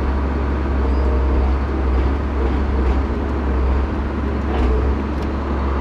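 Engine of the machine lifting the walnut burls running steadily, a low, even drone.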